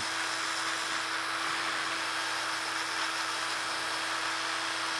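Cordless drill spinning a sanding pad against a dyed wooden vessel on the lathe, a steady motor tone with sanding hiss, power-sanding back the dye.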